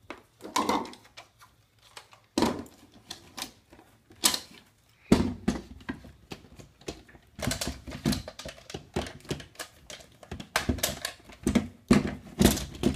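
Ninja blender's plastic parts being handled and fitted together, giving an irregular run of sharp clicks and knocks with some dull thuds.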